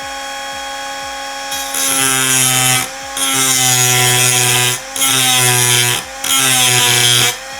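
Angle grinder running with a non-diamond disc, then pressed against a ceramic keycap four times in a row, each contact adding a harsh grinding rasp over the motor whine, with short breaks between. The hard ceramic barely cuts: the disc only wears at the glaze.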